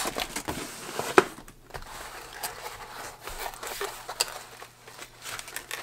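Cardboard packaging box being handled and opened by hand: rustling and scraping of cardboard with scattered sharp clicks, the sharpest about a second in.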